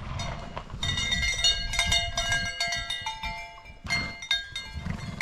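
Several stock bells at different pitches clanking irregularly, the way bells hung on moving pack animals ring, starting about a second in with a short lull near the end.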